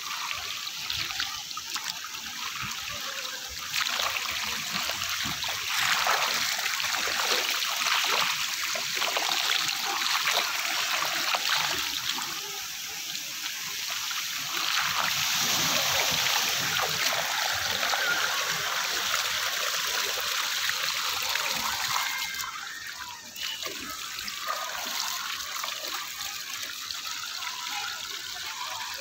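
Steady running and splashing water from waterpark pool fountains and spray features, louder through the middle and easing off a little after about 22 seconds.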